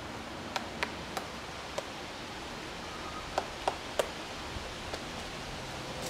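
Male pileated woodpecker digging into a dead tree: sharp, separate knocks of its bill on the wood, four spread over the first two seconds, then a quicker run of three louder blows a little past halfway and two fainter ones after.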